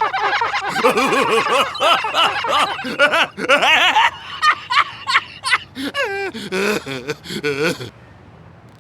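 Cartoon character voices laughing and snickering, several at once at first, then one voice chuckling in quick up-and-down pulses, cutting off suddenly near the end.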